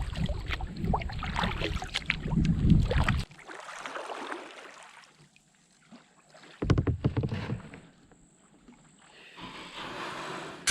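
Kayak on the water at a landing: knocks from the paddle and hull, with water noise and low rumble on the microphone. It is loudest and busiest for the first three seconds, then comes in short, quieter bursts with near-quiet gaps.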